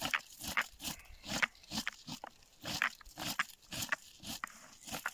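Crunching and rustling of bog shrubs and moss as cranberries are picked from the low plants, a series of short, irregular crunches about two or three a second.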